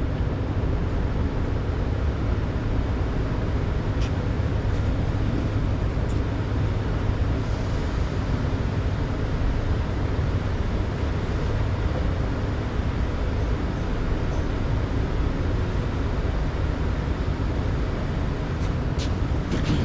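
Steady low rumbling background noise with a few faint clicks and no distinct machine rhythm.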